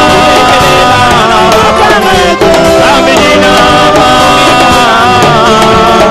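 A male vocal group sings a gospel song in close harmony through microphones, loud and amplified, over a band with a drum kit.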